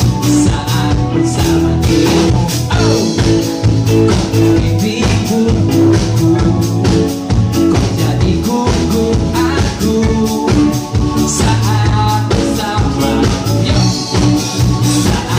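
Live pop-rock band playing: a male lead vocal over electric guitar, bass guitar and a drum kit.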